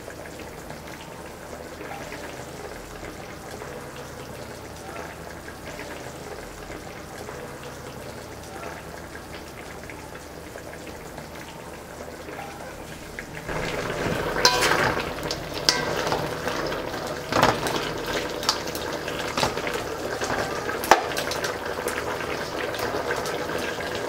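Curry of crane meat boiling in a large aluminium pot: a steady soft bubbling hiss. About halfway in it gets louder, with many sharp pops and spatters.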